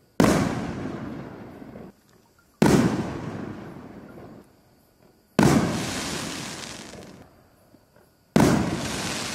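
Four 5-inch canister aerial firework shells going off one after another, about every two and a half to three seconds. Each is a sudden loud boom with a long fading tail that cuts off short.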